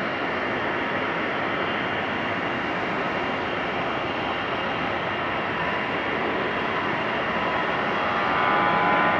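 Airliner's jet engines at takeoff power during the takeoff roll, a steady roar. About eight seconds in it grows louder and takes on a whine as the aircraft comes closer and lifts its nose.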